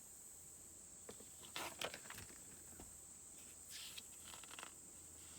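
Near silence: a few faint, short rustles of paper being handled, over a steady high-pitched hiss and a low hum.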